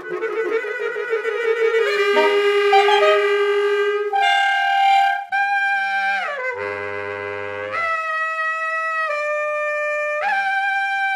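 Saxophone quartet of soprano, alto, tenor and baritone saxophones playing contemporary chamber music: a noisy, wavering tone at first, then held notes, with pitches sliding downward about halfway through, a low held note, and an upward slide near the end.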